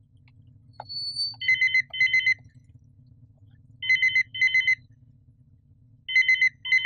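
Telephone ringing with a trilling double ring, three double rings about two seconds apart. A short high beep comes about a second in.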